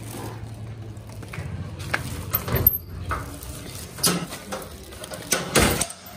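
Plastic grocery bags rustling and keys clinking as they are carried by hand, with a few sharp metallic knocks, the last near the end as the sliding bolt of a painted metal door is handled.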